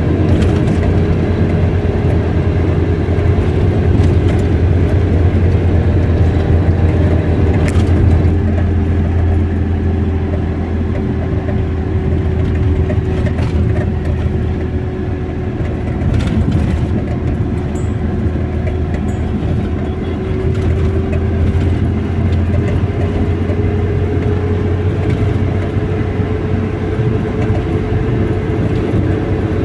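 A car running steadily, with engine and road noise: a constant low hum and a held tone that drops slightly in pitch midway and rises again near the end.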